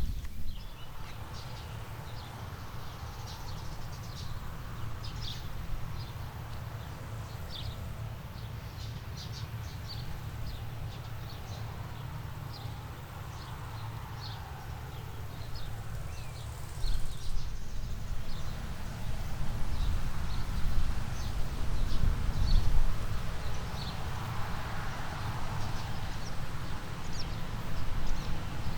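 Birds chirping in short, irregular calls over a steady low rumble; the rumble gets louder about two-thirds of the way through.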